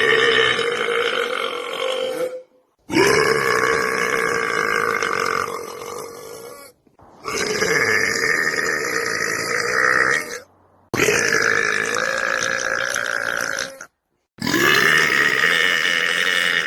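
A man's long, drawn-out belches, about five in a row, each lasting three to four seconds and split by brief silences.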